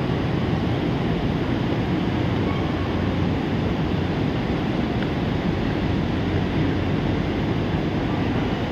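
Steady low rumbling noise that stays even throughout, with no distinct events.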